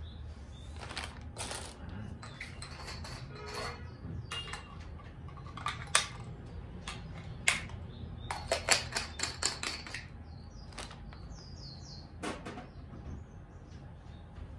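Scattered clicks and knocks of small hard parts being handled as audio equipment is connected and plugged in. There is a quick run of clicks about two thirds of the way through, over a steady low hum.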